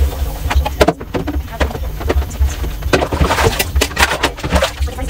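Dishes clinking and knocking against each other and the sink as they are washed and set into a dish rack: a string of sharp, irregular clatters over a low, regular pulsing in the background.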